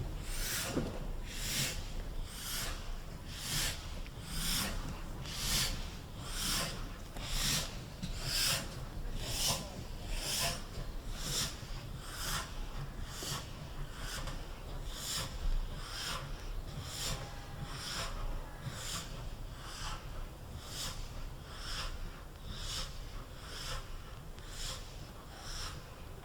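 GWR 6400-class pannier tank locomotive no. 6412 working slowly under steam, with even exhaust chuffs about one a second over a low rumble. The beats grow a little fainter near the end.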